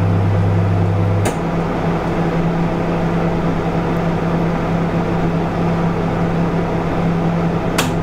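Microwave oven running as it heats food: a steady electrical hum, whose deeper part cuts out with a click about a second in while a lighter running hum carries on. Another click comes near the end.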